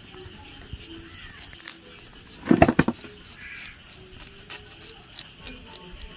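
A knife scraping the skin of a pearl spot fish in faint, light strokes, over a steady high insect trill. About two and a half seconds in, a loud, brief, harsh burst lasting under half a second.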